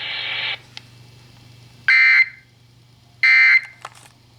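Two short bursts of digital data tone from a NOAA Weather Radio SAME end-of-message code, about a second and a half apart, marking the end of the alert broadcast. A steady buzzy noise cuts off about half a second in, and a faint low hum runs underneath.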